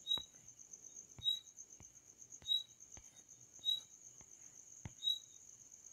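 Faint insect chirping in the background: a steady high-pitched trill, with a short higher chirp and a light click repeating about every second and a quarter.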